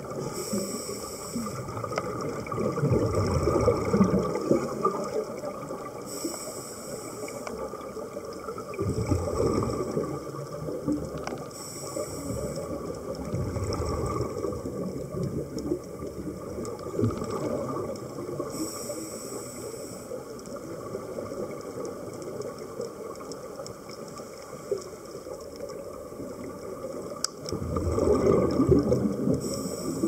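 Scuba regulator breathing underwater: a high hiss on each inhale, roughly every six seconds, and bubbling on each exhale.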